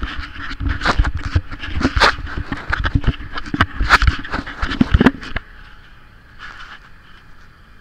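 Clattering and knocking from a furrow press rolling over freshly ploughed soil, heard through an action camera fixed to it, over a steady tractor engine hum. The knocking stops about five seconds in, leaving faint rustling.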